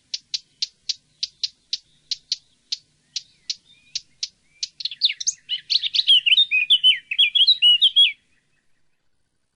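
A songbird repeating a short, sharp high call note about three times a second, then from about five seconds in a fast, jumbled, warbling song that stops abruptly a few seconds later.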